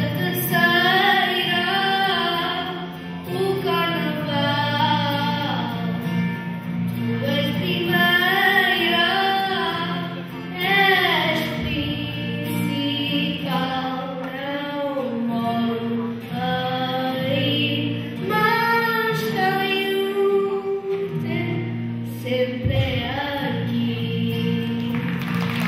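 Music: a woman singing a melody over a steady low accompaniment.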